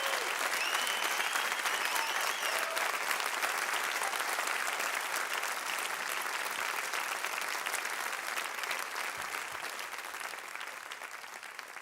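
Studio audience applauding, the clapping gradually fading away.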